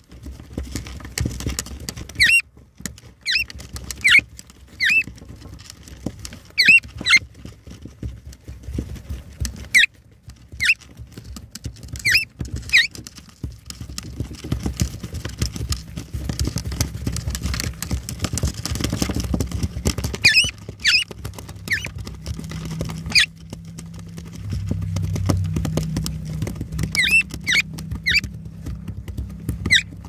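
Eastern rosellas in the nest give more than a dozen short, sharp, high chirps at irregular intervals, over the scuffling and scratching of their feet on nest debris and boards. A low steady hum joins about two-thirds of the way in.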